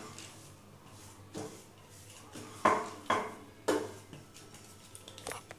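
Wooden spatula scraping and knocking against a nonstick frying pan as a thick mashed-potato masala is stirred and pressed. It comes as a handful of short strokes about a second apart, loudest in the middle.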